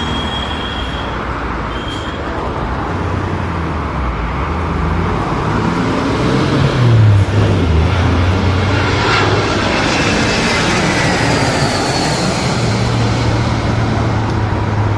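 Airbus A320 jet airliner on final approach passing low overhead with gear down: the engine noise builds to its loudest about seven seconds in, then a whine falls in pitch as the aircraft passes and moves away.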